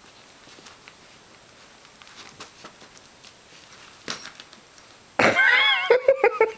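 A loud, high-pitched voice-like cry starts about five seconds in, wavering in pitch. It then breaks into a fast run of short pulses, several a second. Before it there are only faint soft taps.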